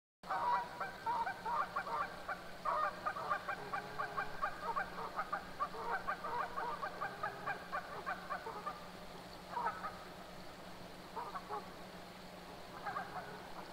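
Canada geese honking in a rapid, overlapping chorus that thins out after about eight seconds to a few single calls.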